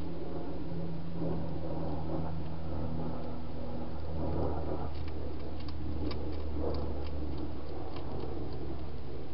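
A wild hedgehog feeding at a dish, with a loose run of small crunching clicks in the second half, over a steady low hum and hiss.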